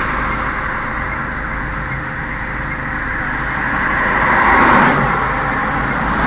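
Car running, with a steady rumble of engine and road noise that grows louder about four seconds in.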